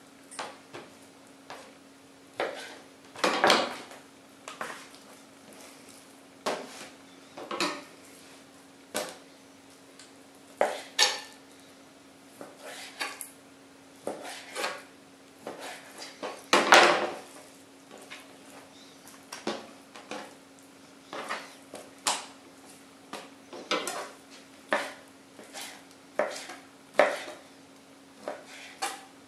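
Kitchen knife knocking on a plastic cutting board as raw chicken breast is sliced into strips: irregular knocks about once a second, two of them louder.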